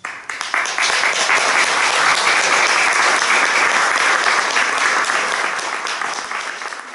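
Audience applauding: many people clapping, building to full strength within the first second and tapering off near the end.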